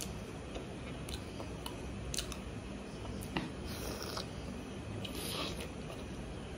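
Close-up eating sounds of a piece of pork being bitten and chewed: a few faint mouth clicks, then two short hissy smacks about four and five seconds in, over a steady low hum.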